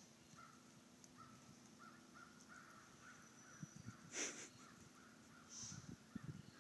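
Near silence, with a distant bird giving faint, rapid repeated short calls for the first three seconds or so. A short hissing puff comes about four seconds in, and a softer one about a second and a half later.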